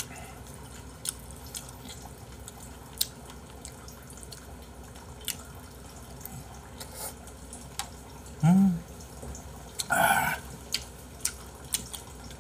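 Close-miked eating of a rice-in-soup dish: scattered sharp, wet mouth clicks while chewing. A short hummed voice sound comes about eight and a half seconds in, and a brief rushing burst of breath noise comes about ten seconds in.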